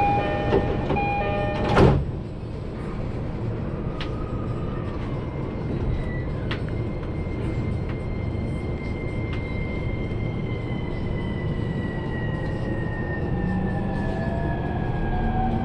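Commuter train door chime, a repeated two-tone ding, ending with the sliding doors shutting with a thud about two seconds in. The electric train then pulls away: its traction motors give a whine that shifts in pitch as it gathers speed, over a steady carriage rumble.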